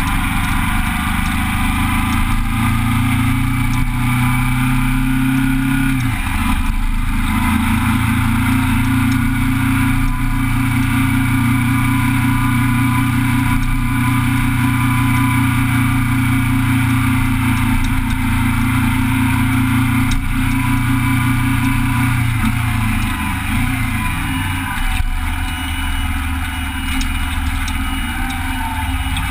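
Motorcycle engine running under way, heard up close from the bike itself. It dips and breaks off briefly about six seconds in, then picks up again. Near the end it settles lower and quieter as the bike slows.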